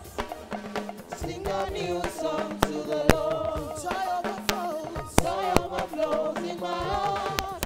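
Live gospel praise music: voices singing over drums and percussion, with sharp drum hits cutting through.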